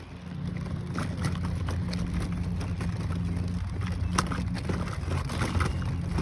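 An engine runs steadily, a low, even hum, with a few faint clicks over it.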